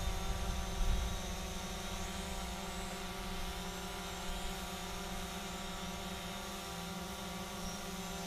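Visuo mini quadcopter drone's propellers buzzing steadily in flight, a hum of several steady tones with a higher whine wavering above. A brief low thump comes about a second in.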